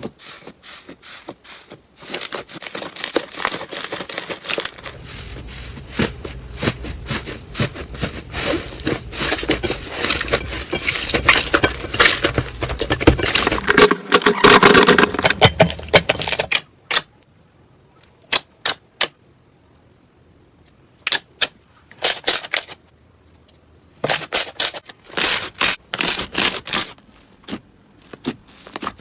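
Slime being squeezed and pressed by hand, giving dense wet crackling and popping clicks. It stops abruptly about halfway through, and then comes back in a few short bursts of crackles and pops.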